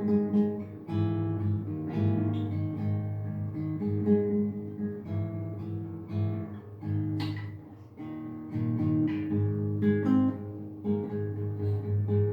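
Acoustic guitar music: plucked notes and chords played one after another.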